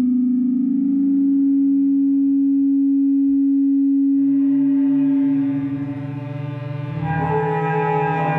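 Contemporary ensemble music from a live concert: a single loud, steady held tone that fades after about five seconds as a lower tone enters, then several higher held tones join in a sustained chord near the end.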